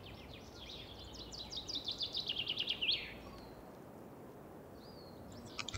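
Cumin seeds and whole round red chillies crackling and sizzling in hot oil in a small pan, tempering a tarka. The rapid crackles build over the first three seconds, then die down to a faint sizzle.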